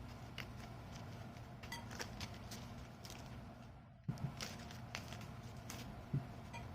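Hands handling and folding lumpia wrappers around cheese sticks: soft scattered taps and small clicks over a steady low hum.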